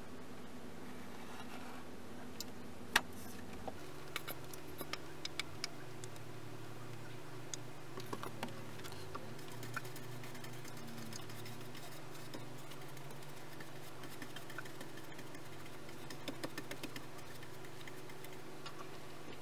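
Light, scattered clicks and taps of hand-tool work on wood over a steady low hum, with one sharper click about three seconds in; the hum changes pitch about four seconds in.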